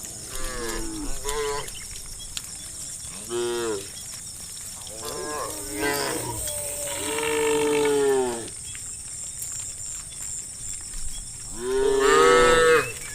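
Cattle mooing: about six separate calls, including a long drawn-out moo in the middle, with the loudest call near the end.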